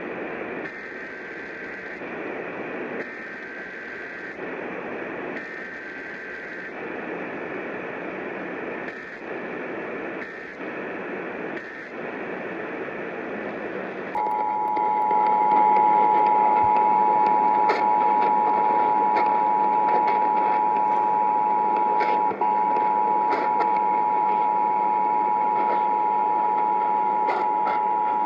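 Emergency Alert System signal received over radio with static hiss: three short bursts of SAME header data tones, each about a second long, then about fourteen seconds in the steady two-tone EAS attention signal starts, louder. It is the opening of a required monthly test of the Emergency Alert System.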